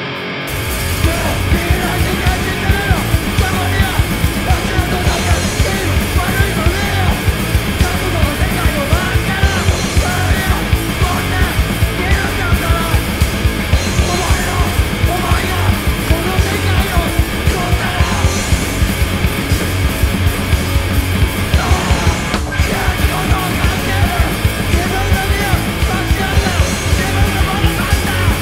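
Rock band playing live: distorted electric guitar through Marshall amplifiers and a drum kit keeping a fast, steady beat, with vocals over the top. The song starts right at the beginning.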